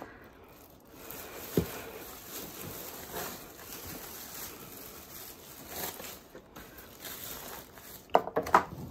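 Black plastic bin bag rustling and crinkling as wet hay and newspaper are tipped into it from plastic trays, with a single sharp knock about one and a half seconds in.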